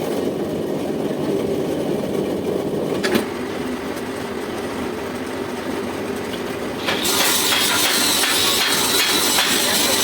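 Metal lathe running with a steady machine hum. There is a sharp click about three seconds in. About seven seconds in the sound turns abruptly louder and hissier.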